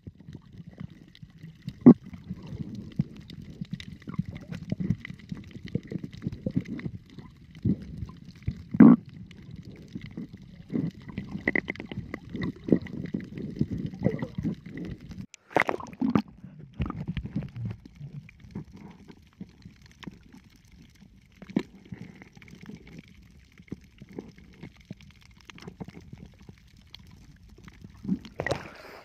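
Muffled underwater sound picked up by a submerged camera: a constant low rumbling and gurgling of moving water, broken by scattered sharp knocks and clicks, the loudest about two and nine seconds in, over a faint steady high tone.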